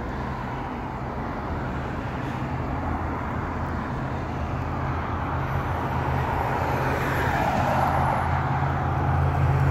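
Road traffic noise, with a motor vehicle's engine hum growing steadily louder as it approaches.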